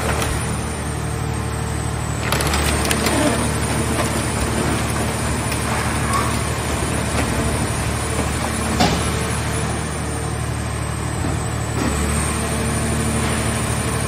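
Mobile car-shell baler running steadily, its engine and hydraulics humming as the press lids move over crushed car bodies. Metal cracks and creaks sharply a few times: around two and a half seconds in, near nine seconds, and near twelve seconds.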